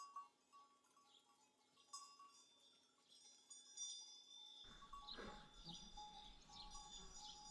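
Faint tinkling of sheep bells, a scatter of thin ringing notes, becoming a little fuller and steadier about four and a half seconds in.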